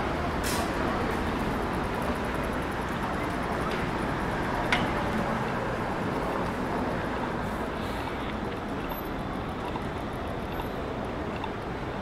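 Steady city street noise of traffic running past, with one sharp click about halfway through.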